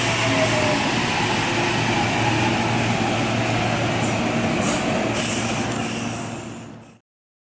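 Kintetsu 22600 series 'Ace' limited express electric train pulling into the platform and braking to a stop: a steady low hum and running noise, with a short falling whine about half a second in as it slows. The sound fades away near the end.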